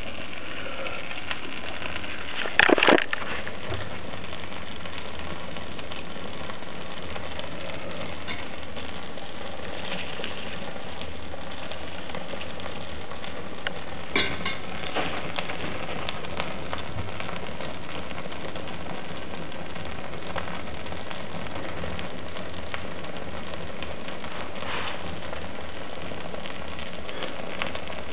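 Wood fire burning in an open stove firebox with a leather shoe in the flames: a steady rushing hiss with scattered crackles and pops. A louder brief clatter comes about three seconds in and a smaller burst of pops about halfway through.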